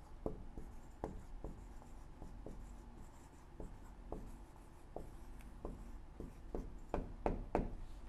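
Dry-erase marker writing on a whiteboard: faint scratches and ticks of the felt tip as a line of words is written. Near the end come three sharper taps, as the three dots of an ellipsis are put down.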